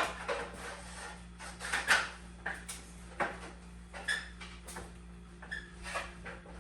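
Irregular knocks and metallic clinks of tools and hardware being handled, a few of them ringing briefly, over a steady low electrical hum. The loudest knocks come at the very start and about two seconds in.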